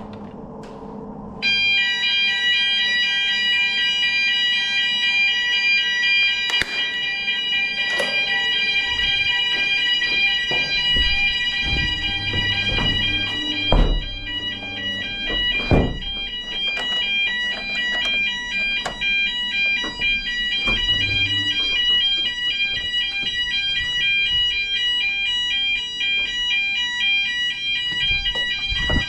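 Building fire alarm sounding during its weekly test. It comes on suddenly about a second and a half in as a loud, steady, high-pitched ringing tone that holds without a break, with a few short knocks heard over it.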